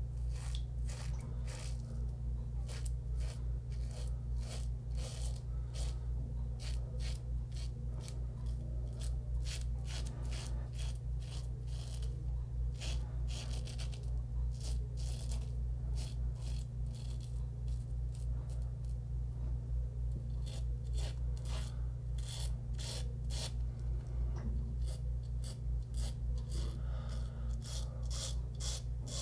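Merkur 34G double-edge safety razor with a Wilkinson Sword blade scraping through lathered stubble in many short, crisp strokes during the first pass of a wet shave. A steady low hum runs underneath.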